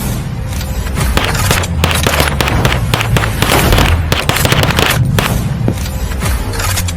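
Rapid pistol gunfire, many shots in quick, irregular succession, over background music with a heavy low beat.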